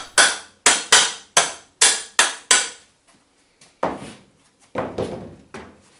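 Hammer striking bolts to drive them through the drilled wooden spokes of a water wheel: seven sharp strikes about two to three a second, then two duller knocks.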